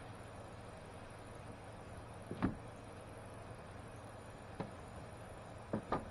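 A few isolated light knocks over a steady low background, the loudest about two and a half seconds in and a small cluster near the end.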